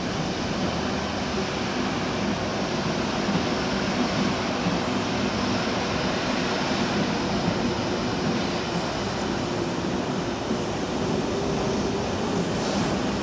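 Double-deck electric suburban train running along the tracks, a steady rumble of wheels on rail that holds at an even level.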